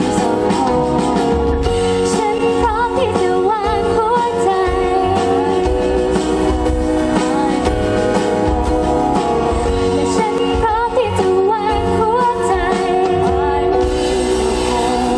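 A live pop band performance: a woman sings into a microphone over drums and bass, her voice gliding and wavering on held notes.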